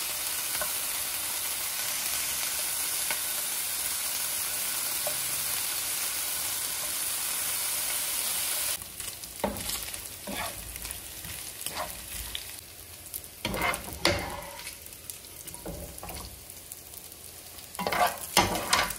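Bacon lardons sizzling in hot fat in a frying pan, a steady hiss. About nine seconds in the level drops suddenly and the sizzle goes on quieter, broken by scrapes and knocks of a wooden spatula stirring the pieces, with louder scraping near the end as a wire-mesh skimmer lifts them out.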